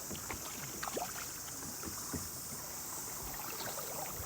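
Kayak paddling on a river: irregular small splashes and drips of water from the paddle, over a steady high hiss.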